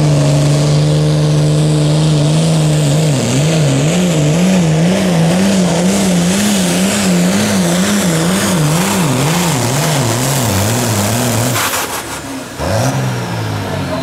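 Hot farm pulling tractor's turbocharged diesel engine held at high revs under full load while dragging the weight-transfer sled. A few seconds in, the engine speed starts surging up and down about one and a half times a second. Near the end the engine drops off as the pull stops, then revs up once more briefly.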